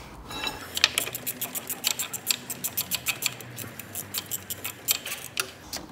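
Low-profile ratchet clicking in a quick run of strokes, about three or four clicks a second, as 10 mm bolts are undone.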